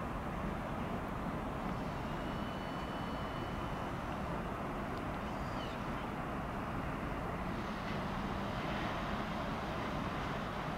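Steady rumble and hiss of an ÖBB Intercity train at a station platform. A faint high whine runs for a couple of seconds about two seconds in.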